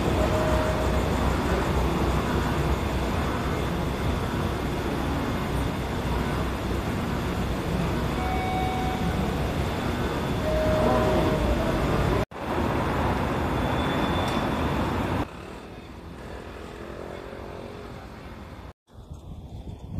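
Steady running noise of a moving vehicle, a low rumble with some faint whining tones. It cuts out abruptly about twelve seconds in, comes back, drops to a quieter noise a few seconds later, and cuts out again briefly near the end.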